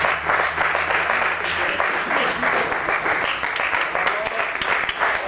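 Audience applauding, with a few voices mixed in.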